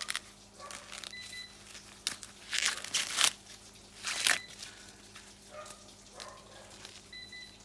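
Corn plant leaves and husks rustling and tearing as ears of maize are handled and pulled from the stalk, in two louder bursts about two and four seconds in.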